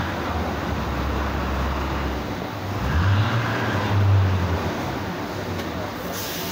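A motor vehicle engine running nearby over street traffic noise, a steady low hum that swells louder about three to four seconds in.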